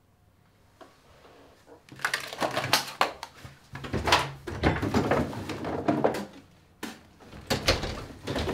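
Kitchen cupboards and drawers being rummaged through: a dense run of knocks, clicks and clatter of doors and things being moved about, starting about two seconds in.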